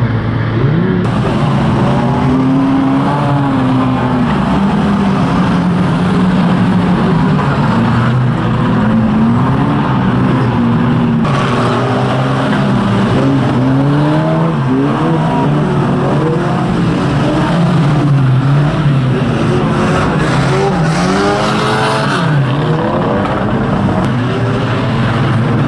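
Several pre-1980 banger racing cars' engines running hard at once, their notes rising and falling as the drivers rev, lift off and accelerate around the track. The mix changes abruptly twice, about a second in and near the middle.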